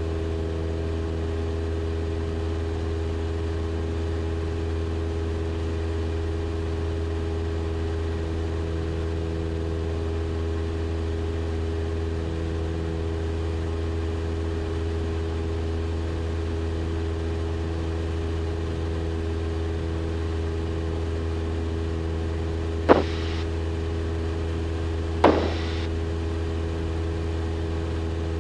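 Cessna 172 Skyhawk engine and propeller in steady cruise, an even drone heard inside the cabin. Near the end come two sharp clicks about two seconds apart, louder than the drone.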